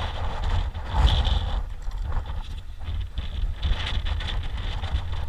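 Wind buffeting an action camera's microphone, a steady low rumble with a stronger gust about a second in.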